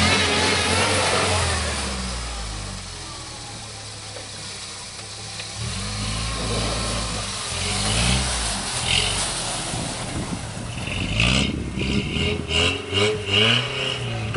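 Toyota 4x4 engine revving hard under load in snow, easing off after a couple of seconds and then climbing and dropping in pitch again as it is repeatedly gunned. Toward the end the sound turns choppy and uneven.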